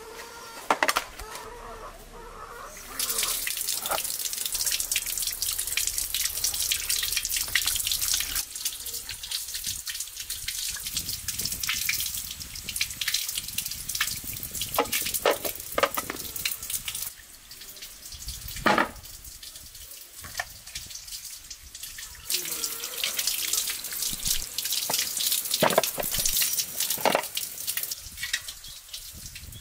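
Water runs from an outdoor tap over raw cow feet as they are rubbed clean by hand. It starts a few seconds in, pauses for several seconds around the middle, then runs again. Sharp knocks are scattered through it.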